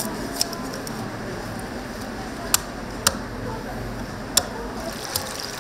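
Food-stall background noise with faint voices, broken by four sharp clicks about half a second, two and a half, three, and four and a half seconds in.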